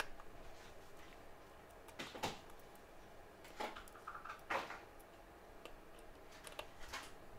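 Faint, scattered clicks and scrapes of small repair tools working on the metal shields and screws inside an opened iPhone X.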